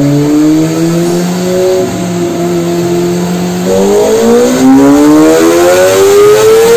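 Kawasaki ZX-25R's 249 cc inline-four engine running a pull on a chassis dynamometer, freshly tuned. It holds a fairly steady speed at first, then about four seconds in the revs start climbing steadily in a rising wail as the bike accelerates on the rollers.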